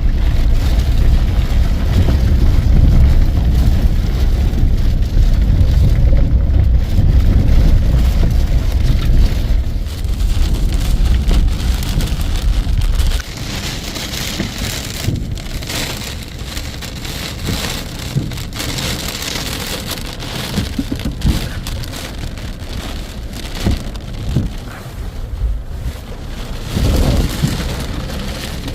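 Heavy rain pouring, with strong wind rumbling deep over the microphone until it drops away suddenly about 13 seconds in, leaving the rain alone.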